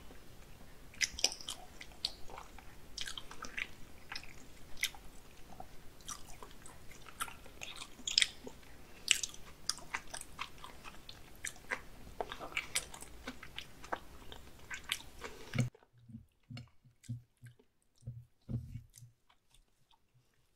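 Close-miked mouth sounds of chewing raw salmon sashimi: irregular wet clicks and smacks. Near the end they stop and a few soft low thuds follow.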